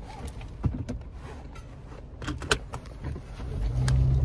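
Car seatbelt being pulled across and buckled: several sharp clicks and rattles. Near the end a low car rumble swells as the car gets moving.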